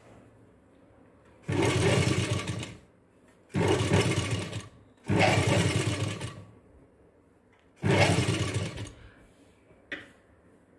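Sewing machine stitching a sleeve seam into a blouse, running in four short bursts of about a second each with pauses between them. There is a short click near the end.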